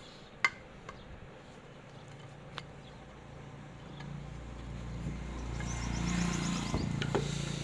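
A few sharp clicks of tools working the ceiling fan's nuts, the first and loudest about half a second in. From about halfway a low engine-like rumble swells and holds.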